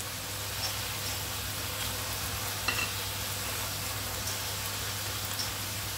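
Shimeji mushrooms, red pepper and petai beans sizzling steadily in a hot frying pan as they are stirred and tossed, with a few light clicks of the utensil against the pan.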